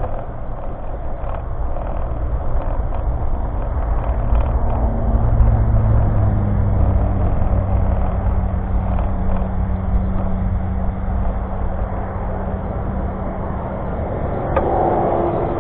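Pickup truck towing a bass boat on its trailer, rolling over pavement: a continuous low rumble of engine, tyres and trailer, with a steady engine hum that comes in about four seconds in and fades near the end.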